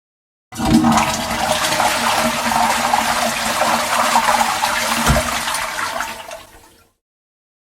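Water rushing, starting abruptly and fading away near the end, with a dull knock about five seconds in.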